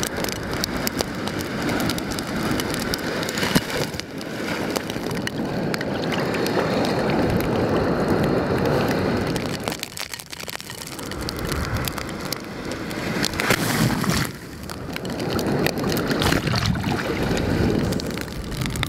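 Rough storm surf and strong wind buffeting the microphone, a loud rushing that swells and eases every few seconds, with crackling gusts.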